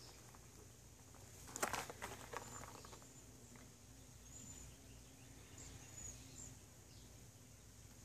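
A short burst of rustling and crackling as plants brush past, about a second and a half in. Then several faint, high-pitched bird chirps over a low steady hum.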